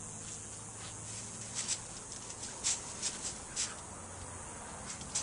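Two pit bulls nosing through a dense shrub after a lizard: a scatter of short, hissy sniffs and brushes against the leaves, about seven of them, starting about a second and a half in.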